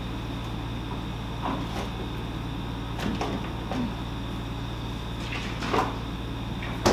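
Someone rummaging in an open refrigerator: scattered light knocks and clinks of bottles and containers being moved, then a louder knock toward the end as the refrigerator door is shut, and a sharp knock at the very end, over a steady low hum.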